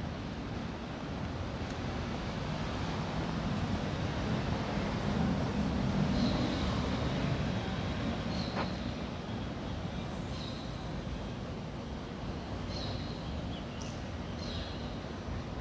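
Street traffic: a motor vehicle passes, its low engine sound swelling to loudest about six seconds in, over a steady noise of the street. Short high chirps come and go throughout, with one sharp click about halfway.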